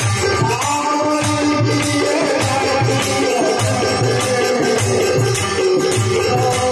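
Devotional bhajan music: a harmonium holds steady chords while hand drums keep a beat of about two strokes a second and a tambourine jingles, with a man singing into the microphone.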